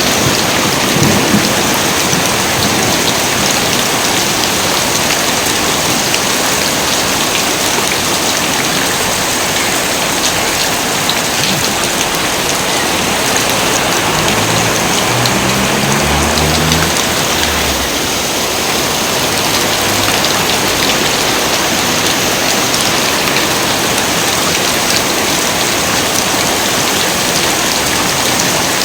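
Heavy rain falling steadily and densely, with a low rumble of thunder about halfway through.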